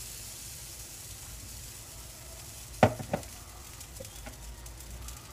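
Pancake batter sizzling steadily in a hot stainless steel frying pan, with two sharp clicks about three seconds in.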